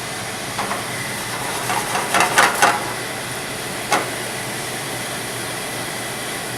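Steady hiss of a wine sauce boiling down in a pan on the stove, with a few bursts of clattering cookware and a single sharp click about four seconds in.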